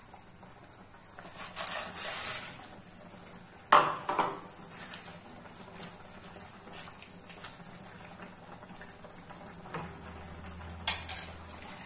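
Fried papad pieces going into a non-stick kadhai of simmering potato curry and being stirred in with a spoon: a rustle as the pieces go in, a sharp knock against the pan about four seconds in, then quieter stirring and another knock near the end.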